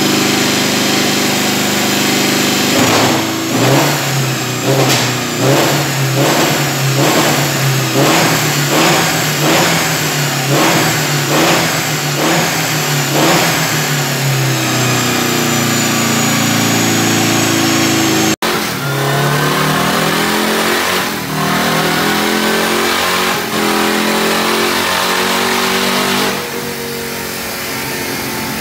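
BFG Citroën 1300's air-cooled flat-four engine running on a bench and being blipped repeatedly, about one rev a second for some ten seconds, then held at a steadier higher speed. After a sudden cut, another motorcycle engine revs up, runs, and settles lower near the end.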